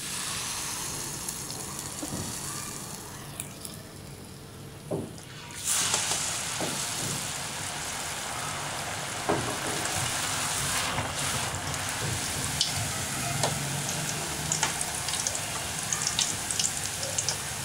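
Rose cookie batter deep-frying in hot oil on its iron mould, a steady hissing sizzle that rises sharply about six seconds in as the batter-coated mould goes into the oil, with scattered sharp crackles.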